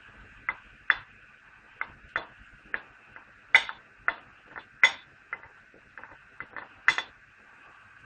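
Wooden spoon knocking and scraping against a china plate, pushing diced serrano ham off it into a pot of broad beans: a run of irregular sharp clicks, about two a second, a few much louder than the rest.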